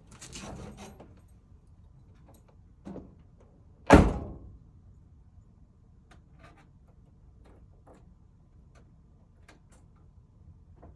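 Truck door opened, then slammed shut with one loud bang about four seconds in, followed by a few faint clicks.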